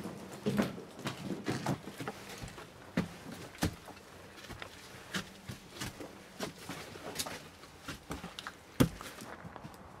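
Irregular footsteps scuffing and knocking on loose stone and debris in a stone passageway, with one sharper knock near the end.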